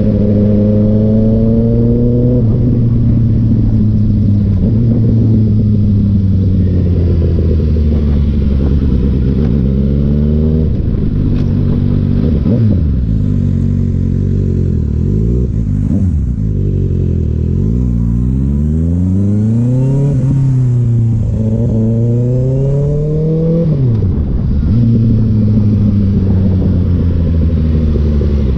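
Kawasaki ZX-6R's 636 cc inline-four engine under way, its pitch repeatedly climbing as it accelerates and dropping with gear changes and slowing, with a dip about ten seconds in and another near the end before it pulls up again.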